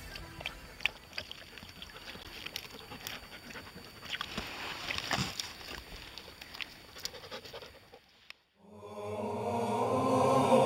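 A standard poodle lapping and splashing water at a lake's edge, with irregular wet clicks and splashes. After a brief silence near the end, music with chanting fades in.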